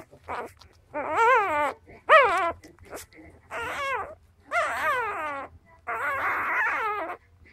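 Newborn Cardigan Welsh Corgi puppy crying in a series of high, wavering squeals, about six in a row, each shorter than a second. It is a hungry puppy's cry as it roots for its mother's milk.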